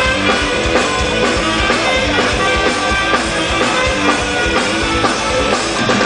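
Live rock band playing an instrumental passage of a rap-rock song: electric guitar, bass and drum kit keeping a steady beat, with no vocals.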